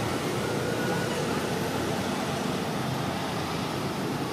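Steady outdoor background noise, an even rumble and hiss with no distinct event.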